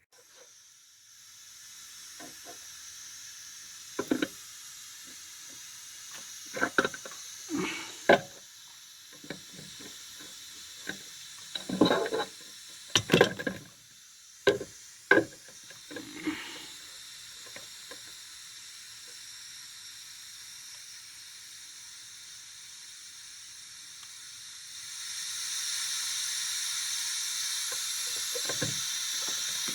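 Steady white-noise hiss, played as a test signal for a 10 m SSB transmitter's microphone input. It is quieter at first, with scattered clicks and knocks, and grows louder about 25 seconds in.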